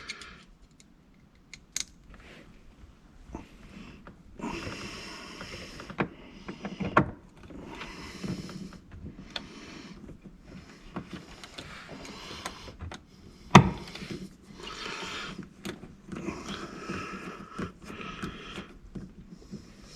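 Hands working on wiring: repeated short scraping and rustling of wires and terminals, with several sharp clicks, the loudest a little past halfway.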